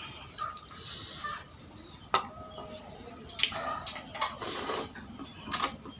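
Close-up eating sounds from a bowl of noodle soup: brief hissy slurps and several sharp clicks of utensils against the bowl.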